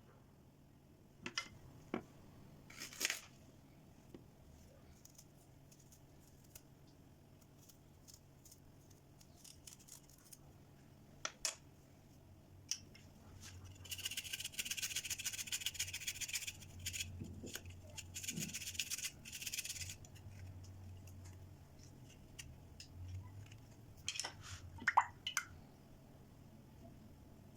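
Kitchen preparation sounds: scattered light knocks and clicks of utensils being handled, with two stretches of steady noise of about two seconds each past the middle.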